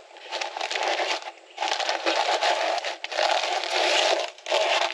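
Dry, fibrous nest box pad crackling and rustling as it is pushed and squeezed by hand into a tight wooden nesting box, in about four bouts with short pauses between them.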